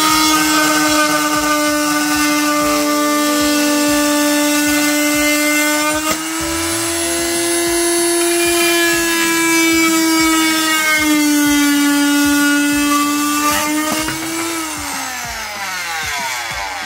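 Silverline 300 W corded oscillating multi-tool running at full speed with its saw blade cutting 9 mm MDF: a steady high whine that dips slightly in pitch under load about two-thirds through. Near the end it is switched off and winds down with a falling whine.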